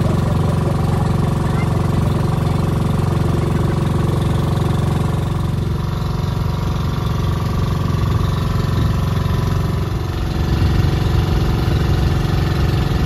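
The engine of a motorized outrigger boat (bangka) running steadily under way, a loud, even drone. It dips briefly about ten seconds in, then carries on.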